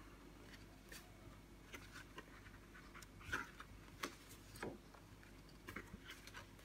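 Faint rustles and light taps of printed cardstock cards being leafed through by hand and laid on top of one another, a few slightly louder taps about three to five seconds in.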